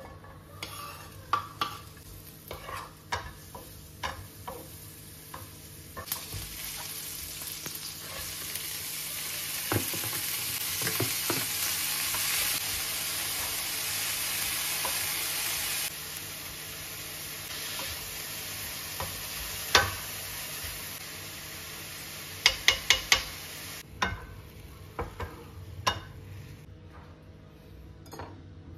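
Vegetables and bean sprouts sizzling in hot oil in a nonstick frying pan while a wooden spatula stirs and scrapes them. The sizzle swells about six seconds in, eases off a little later and dies away near the end, with scattered clicks and a quick run of sharp spatula taps on the pan.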